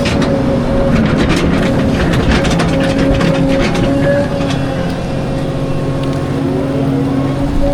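Volvo 220 excavator running under load, its diesel engine and hydraulics making a steady drone with a held whine. For a few seconds after about a second in, the steel bucket clanks and scrapes against rock as it digs.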